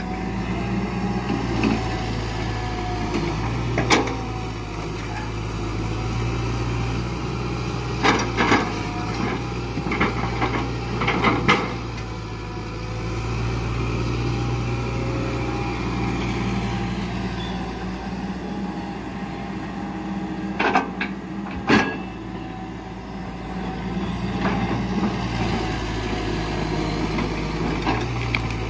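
Hitachi Zaxis 120 hydraulic excavator's diesel engine running steadily under working load, its note rising and falling as the boom swings and the grapple works. Sharp wooden knocks from the grapple handling rubber-wood logs come once early, then in a cluster a third of the way through and again as a pair past the middle.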